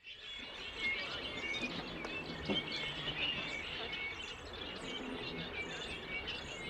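Small birds chirping, with many short chirps throughout, over a steady background noise.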